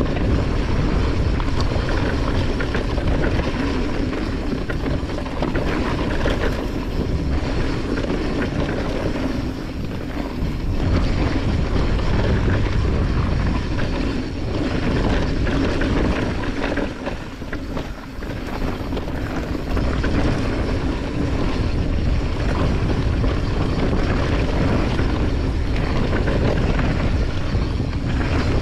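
Mountain bike descending a dirt singletrack at speed: a steady rush of wind buffeting the microphone over tyres rolling and the bike rattling on the rough trail, easing briefly a couple of times.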